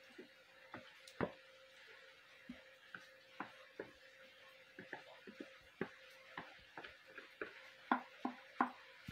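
A metal utensil scraping and tapping against a plastic mixing bowl as the cake batter is scraped out into the pan: light, irregular clicks and knocks, a few louder ones near the end, over a faint steady hum.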